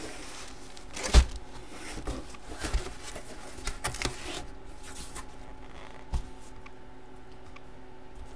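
Empty cardboard box being handled and moved on a tabletop: a few knocks and scrapes, the loudest about a second in, over a faint steady hum.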